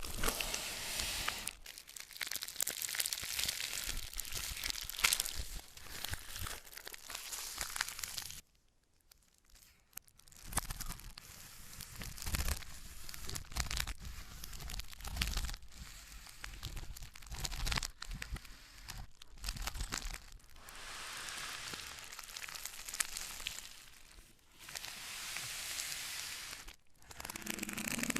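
Packaging being handled during an unboxing: crinkling and tearing of wrap and paper in long rustling stretches, with soft handling thumps and a short pause about a third of the way in.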